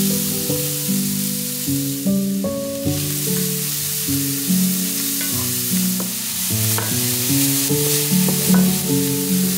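Diced onion sizzling in hot oil in a frying pan, stirred with a wooden spatula that scrapes and ticks against the pan now and then. Soft background music plays underneath.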